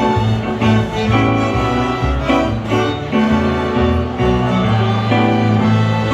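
Small school string orchestra (sinfonietta) playing, violins over cellos, with held notes that change about every second.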